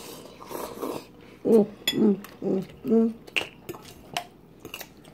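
Noodles being slurped, then metal forks clinking against bowls in a few sharp clicks, with four short vocal sounds from an eater in the middle.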